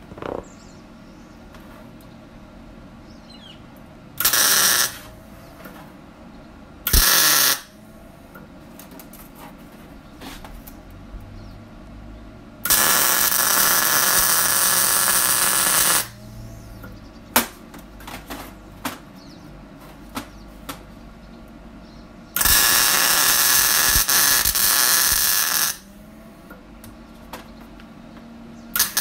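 MIG wire-feed welder arc welding metal spacers: two short tack welds about four and seven seconds in, then two steady welds of about three seconds each, with light clicks between them.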